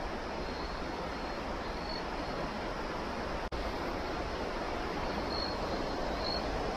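Steady rush of a shallow stream flowing over a riffle.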